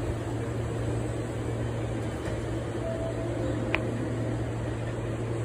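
Steady low hum and noise of a train station platform, with a brief click and a short high ping a little under four seconds in.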